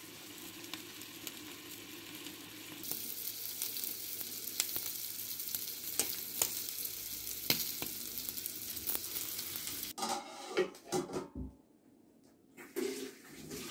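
Mutton frying in hot oil in a pan: a steady sizzle with sharp crackles and pops, growing louder about three seconds in. The sizzling cuts off suddenly near the end, leaving a few soft knocks.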